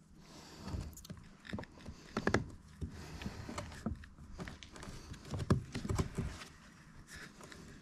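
Scattered light clicks and knocks of metal parts and tools being handled while the new A/C compressor pulley is fitted, coming irregularly with short pauses.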